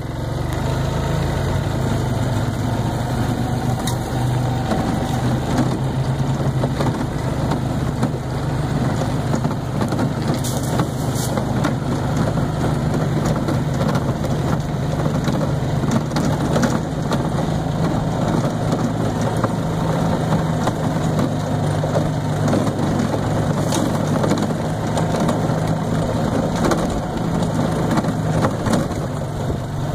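Golf cart driving along a dirt woodland trail: its motor gives a steady low drone throughout, with scattered knocks and rattles from the ride over the ground.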